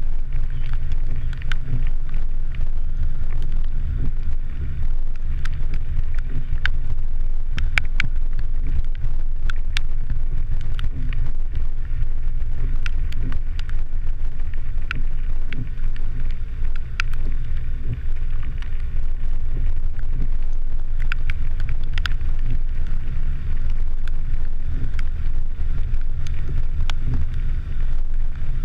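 Vehicle driving on a rough dirt road, picked up by a camera mounted outside it: a steady, loud low rumble of wind and road noise, with scattered sharp clicks.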